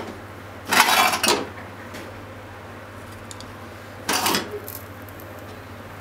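Kitchen clatter as a frying pan and wooden chopsticks are handled on a gas stove: a short burst about a second in and a shorter one about four seconds in.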